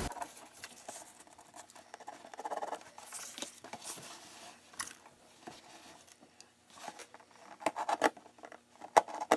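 Faint, scattered clicks and scratching of a cardboard cereal box being handled and worked on, with a few louder taps near the end.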